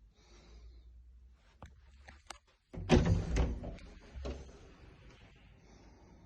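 A few light clicks, then a loud clatter of knocks about three seconds in and a single knock a second later, like something wooden being knocked or shut.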